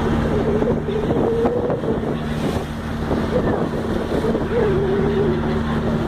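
Steady low drone of a boat's engine, with wind buffeting the microphone.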